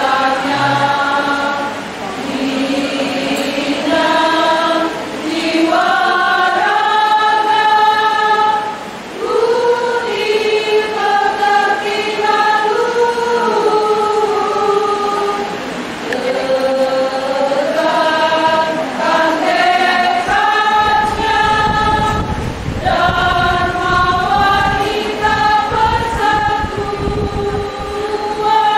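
Women's choir singing in harmony, moving through held and stepping notes. A low rumble runs under the singing for most of the second half.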